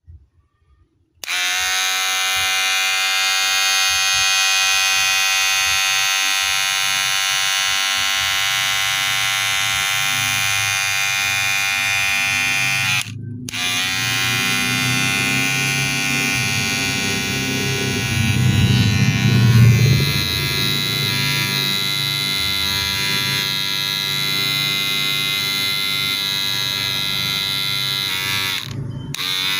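Wahl cordless hair clipper running with a steady electric buzz. It cuts out briefly twice and starts again, and grows louder and lower for a couple of seconds in the middle.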